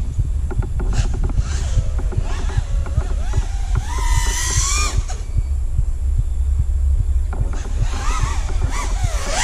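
Onboard sound of an FPV racing drone's Emax Eco 2306 brushless motors spinning Dalprop Fold 5.1-inch propellers: a whine that rises and falls with the throttle, climbing sharply about four seconds in and again near the end, over a heavy rumble of prop wash and wind on the camera microphone.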